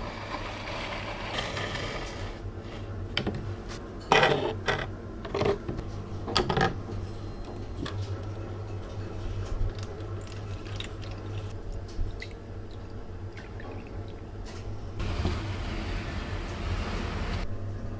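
Handling a plastic bottle and a rusty hammer on a wooden bench: several loud knocks and clatters a few seconds in, then vinegar poured into the bottle over the hammer head. A steady low hum runs underneath.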